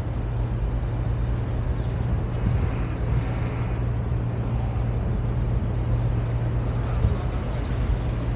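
Steady motor-vehicle noise: a constant low hum over an even road rumble.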